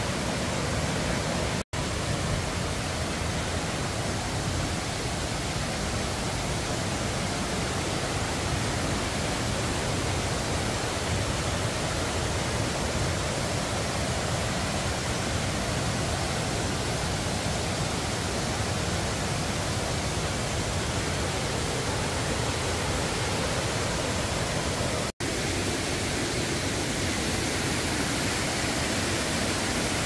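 Waterfall water rushing down a tiered cascade: a loud, steady, even roar with no let-up, broken twice by a momentary dropout.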